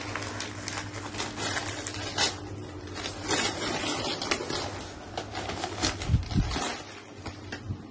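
Printed gift-wrapping paper crackling and rustling as it is torn open and crumpled by hand. A couple of dull bumps about six seconds in.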